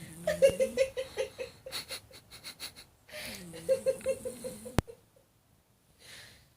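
Domestic cat snoring in its sleep: two long snoring breaths, each with a rapid fluttering rattle, then a sharp click about five seconds in and a faint breath near the end.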